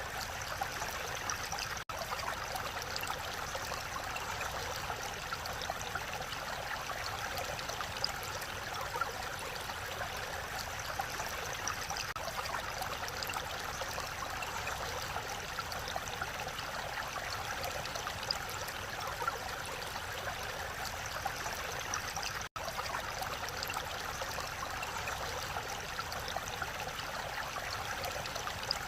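Mountain valley stream flowing, a steady, even rush of water with fine splashing detail. The sound drops out for an instant twice, once near the start and once about three-quarters of the way through.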